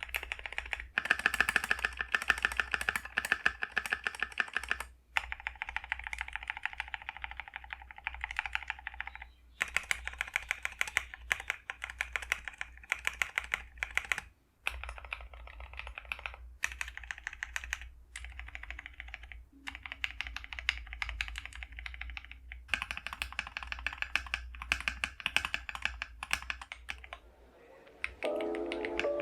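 Fast typing on a KiiBOOM Phantom 81 gasket-mounted mechanical keyboard with pre-lubed switches: a dense stream of keystroke clicks in runs of several seconds, broken by a few short pauses. Music comes in near the end.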